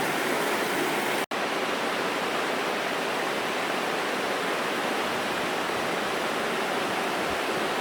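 Steady rush of the Virgin River's water flowing through the Narrows, with a momentary dropout about a second in.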